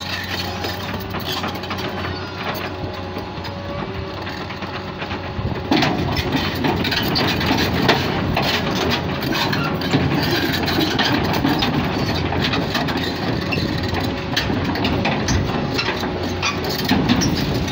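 Liebherr 920 crawler excavator's diesel engine running steadily, then getting louder about six seconds in as the machine climbs onto the lowbed trailer, with its steel tracks clanking and knocking.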